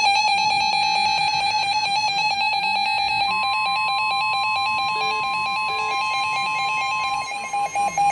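NOAA weather radios sounding their warbling electronic alert tones. About three seconds in, the steady 1050 Hz warning alarm tone of a NOAA Weather Radio broadcast joins them, signalling an incoming warning. Near the end the radios' tones turn to fast beeping.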